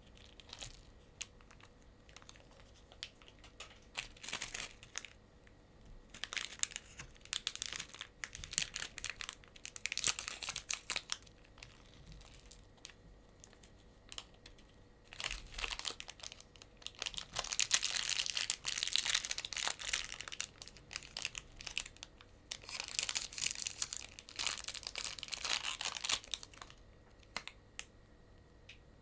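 Plastic and foil candy wrappers crinkling and tearing as they are handled and opened, in bouts of a few seconds with quieter spells between.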